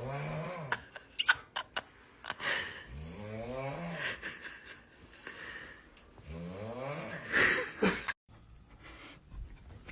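Snoring: three long snores about three and a half seconds apart, each rising and then falling in pitch, with a few sharp clicks after the first.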